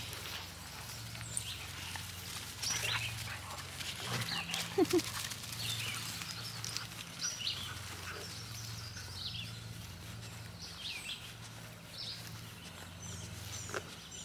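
Dogs trotting and running through long pasture grass, with rustling and a few soft clicks of paws and collars. Songbirds chirp throughout, and a low hum wavers underneath.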